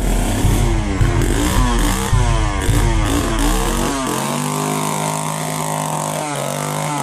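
Chainsaw engine revving up and down in quick repeated blips, then holding a steady high pitch from about four seconds in.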